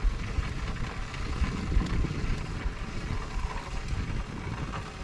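Wind buffeting the microphone: an uneven, fluttering low rumble with no steady tone.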